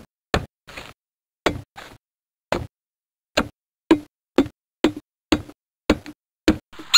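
Axe chopping wood: a string of about a dozen sharp, separate blows, uneven at first and then about two a second.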